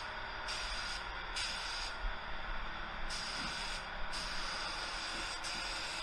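Gravity-feed spray gun spraying paint: a steady hiss of air and atomised paint that cuts back briefly about four times in the first few seconds, as the trigger is let off between passes.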